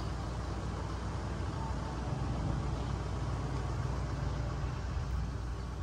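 Steady outdoor background noise: a low rumble with a fainter hiss above it, unbroken and without distinct events.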